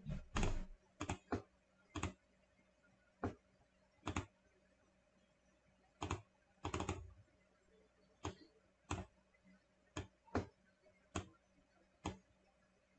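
Computer mouse and keyboard clicking: about fifteen short, sharp clicks at irregular intervals, some in quick pairs, over a faint steady hum.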